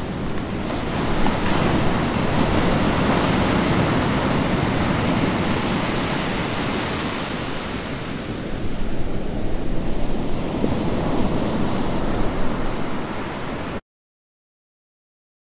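Ocean waves and surf: a steady rushing wash that swells somewhat louder about two-thirds of the way through, then cuts off abruptly near the end.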